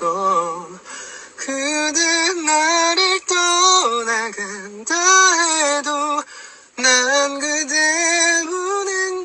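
A man singing a slow melody unaccompanied or nearly so, in a high voice, holding long notes with vibrato and pausing briefly between phrases.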